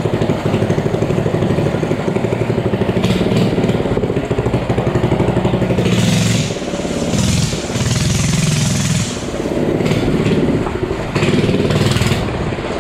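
Minibike's small gas engine running hard, its note dipping and surging several times in the second half as the throttle is let off and opened again.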